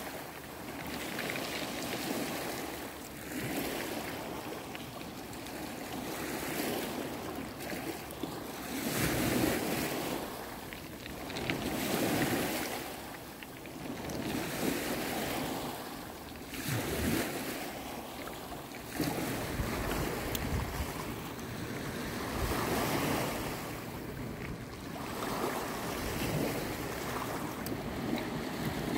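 Sea waves washing onto a rocky, pebbly shore, surging and easing every few seconds. Wind buffets the microphone in gusts in the second half.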